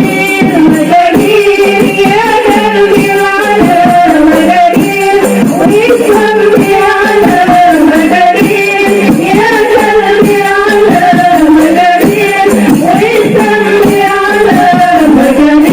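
Qasidah rebana music: singing a melody over rebana frame drums beaten in a steady rhythm.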